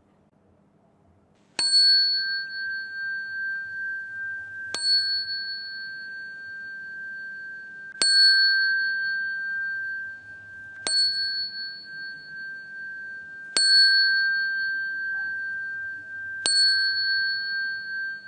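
A Buddhist qing (ritual bowl bell) struck six times, about every three seconds. Each strike rings on at a clear, high pitch into the next. The strokes pace the bows to the Buddha that close the recitation.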